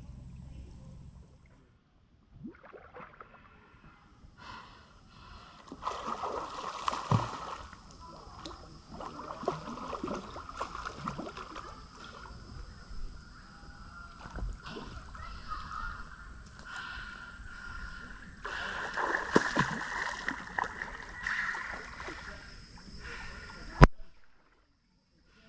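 Water splashing and gurgling against an inflatable boat's hull as it moves along the river, in uneven swells. A single sharp click near the end is the loudest sound.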